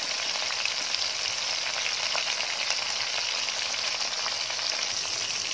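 Semolina-coated prawns deep-frying in hot oil in a wok: a steady sizzle with small scattered crackles.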